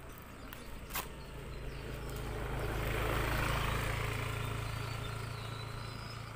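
A motor vehicle passing by: its engine hum and road noise grow to a peak about three seconds in, then fade away. A sharp click comes about a second in.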